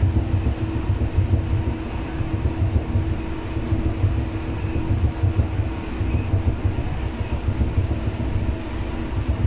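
Cabin sound of a Gold Line Bombardier Innovia APM 300 rubber-tyred people mover running at speed along its guideway: a steady low rumble with a constant hum.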